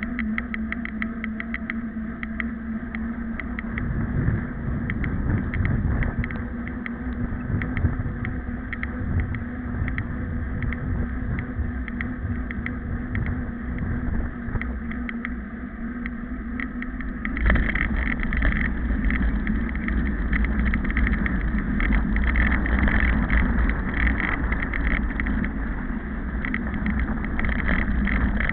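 Steady wind and movement rumble on the microphone of a camera carried along a road, with faint regular clicking. About two-thirds of the way through it turns suddenly louder and fuller.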